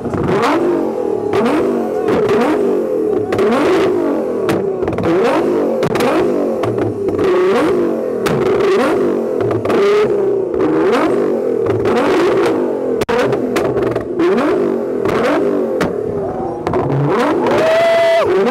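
Nissan GT-R's twin-turbo V6 revved hard again and again while standing still, each rev rising and falling, with sharp pops and bangs from the exhaust as it spits flames.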